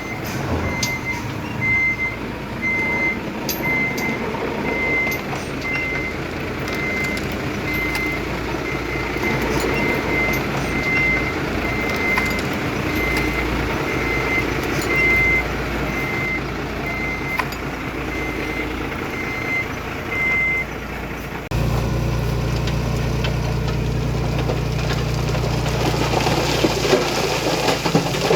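Heavy earthmoving machine's reversing alarm beeping at a regular rate over a diesel engine running; the beeping stops about twenty seconds in. A steadier low engine drone follows.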